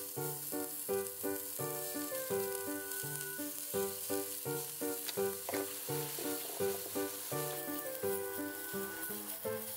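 Tsukune meatballs on burdock-root skewers sizzling as they fry in a nonstick frying pan, with a steady hiss throughout. Background music with a steady beat plays over the frying and is the loudest sound.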